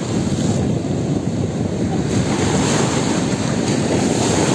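Caribbean surf breaking and washing in on a sandy beach, a steady rush of waves, with wind buffeting the microphone.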